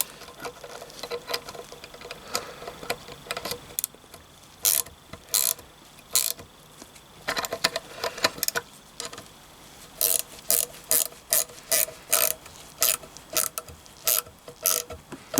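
Hand tools working on metal gearbox parts: a series of sharp metallic clicks, sparse at first, then coming about twice a second in the second half, as a stuck part is worked free of the shaft.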